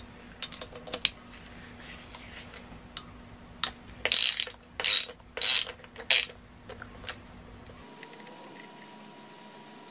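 Socket ratchet undoing the centre bolt of a cleanable oil filter: light metal clicks at first, then about five short, loud runs of pawl clicking in the middle as the handle is swung back and forth.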